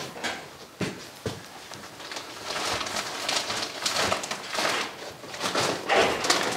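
A couple of knocks about a second in, then a large plastic sack rustling and crinkling as it is dragged out of a car boot and lifted.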